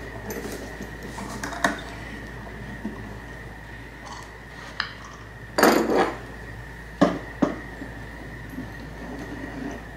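Knocks and clatter of small wooden wedges and parts being handled and set down in a guitar-plate joining jig. There are a few separate knocks, the loudest cluster a little past halfway, over a faint steady high whine.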